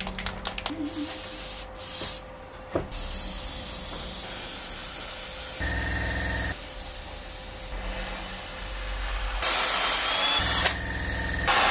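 Airbrush spraying paint with a steady hiss, after a few short clicks in the first seconds.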